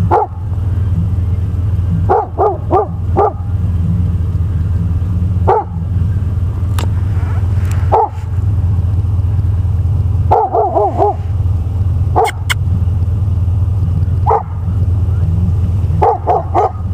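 Chesapeake Bay retriever barking, single barks and quick runs of three or four every couple of seconds, over a steady low rumble.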